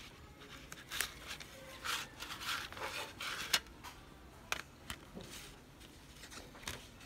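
A plastic CD jewel case and its paper booklet being handled: clicks, rubbing and scraping, busiest in the first half, then a few scattered single clicks.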